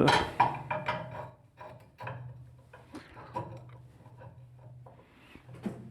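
Scattered metallic clicks and knocks from a spanner and a galvanised water-pipe extension bar being fitted and heaved on against a very tight pulley nut, with a sharper knock near the end. A faint low steady hum runs underneath.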